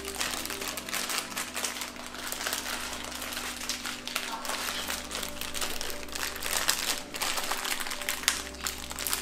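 Plastic packaging crinkling and crackling as it is handled, with steady background music underneath.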